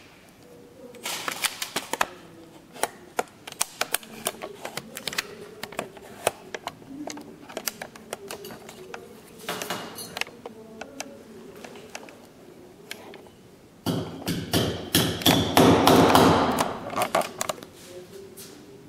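Small metal parts clicking and tapping against each other and the bench as pins are fitted by hand into an air rifle's body. A louder stretch of background voices comes in about fourteen seconds in.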